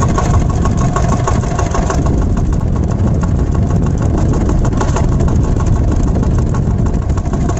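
Two-wheel walking tractor's single-cylinder diesel engine running steadily and loudly, its firing pulses fast and even.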